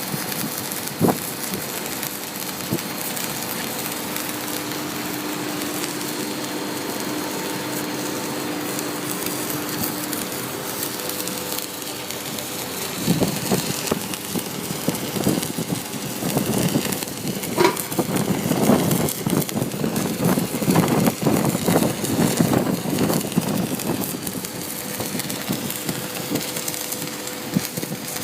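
Flux-cored arc welding with 2 mm hard-facing wire: the arc hisses and crackles steadily, then turns louder and more irregular about halfway through, with rapid sharp pops and spatter.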